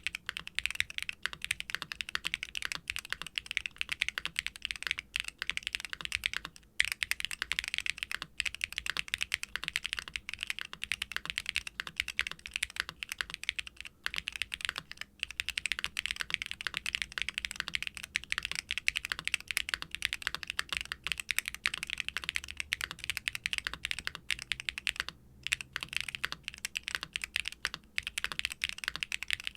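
Continuous fast typing on a custom aluminium Hex80 mechanical keyboard with Gateron Orchid HE linear switches (all-POM housings and stems, light 30g springs) on a carbon fibre plate, with the case foam removed and GMK ABS keycaps. The keystrokes bottom out in a dense run of clicks, with a couple of brief pauses.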